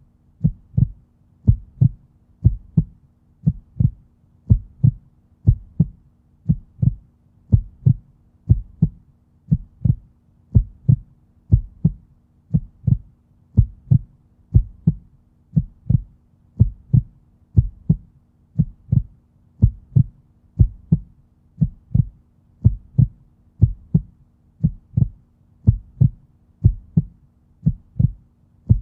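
Heartbeat beating steadily at about one beat a second, each beat a deep lub-dub double thump.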